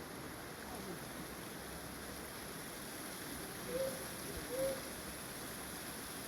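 Steady rush of blowing air, with two short tonal squeaks a bit under a second apart near the middle.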